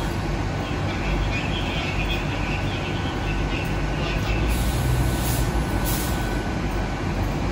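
Train running at a station: a steady low rumble with a faint steady whine and a few short hisses of air about five seconds in.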